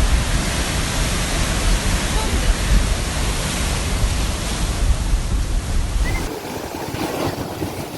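Sea waves breaking and washing in a steady, loud rush with a deep rumble underneath. About six seconds in the rumble drops away and the sound turns to a quieter, thinner wash.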